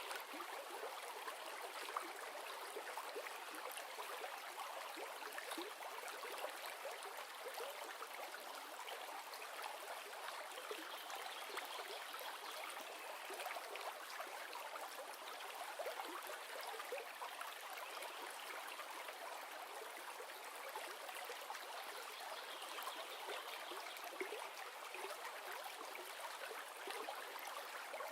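River water flowing and burbling steadily: a continuous rushing with fine splashy flicker, used as a white-noise background.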